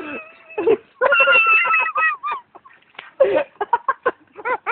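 A person laughing hard: long, high-pitched squealing notes, then a few short bursts near the end.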